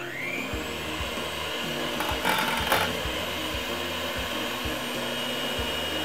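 Philips electric hand mixer running, its beaters whisking pancake batter in a glass jug. The motor whine rises as it spins up at the start, runs steadily, and stops right at the end.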